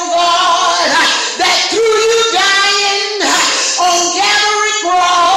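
A high voice singing a slow line of long held notes, stepping in pitch between them, with no clear words.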